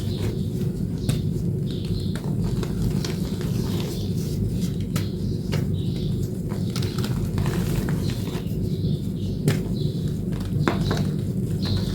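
Dried blue chalk reformed with corn starch paste being crushed and crumbled: irregular crisp crackles and crunches over a steady low hum.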